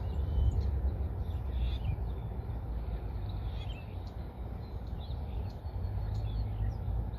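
Wind buffeting the microphone as a steady low rumble, with small birds chirping briefly now and then.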